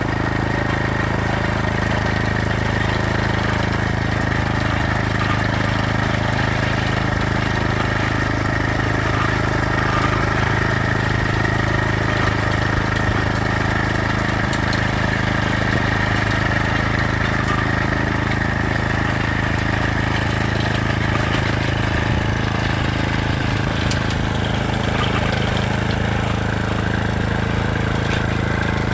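A vehicle engine running steadily: a constant, even hum with no revving.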